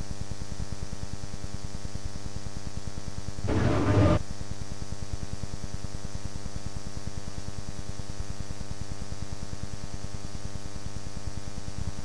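Steady electrical buzzing hum with a fast even pulse, broken by a brief burst of noise about three and a half seconds in.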